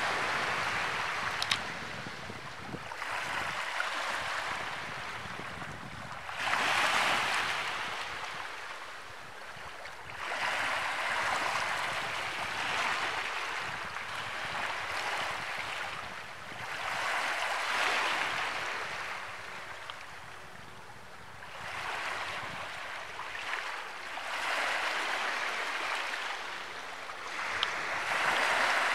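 Small sea waves washing onto a sandy beach, a soft hiss that swells and fades every three to four seconds.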